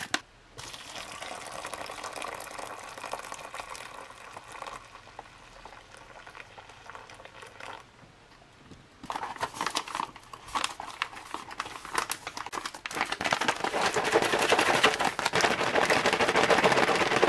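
Water poured steadily from a metal cup into a stand-up pouch of freeze-dried porridge to rehydrate it. About nine seconds in, the pouring gives way to loud crinkling of the pouch's stiff plastic as it is closed and squeezed.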